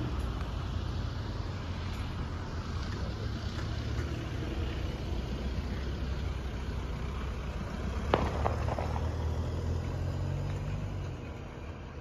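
Low, steady rumble of a motor vehicle that covers the birdsong. A sharp knock comes about eight seconds in, and the rumble eases off near the end.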